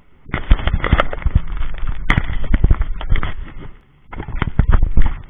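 Loud, crackling wind buffeting on a head-mounted camera's microphone over a low rumble. It cuts in sharply just after the start and drops out briefly a little before four seconds in.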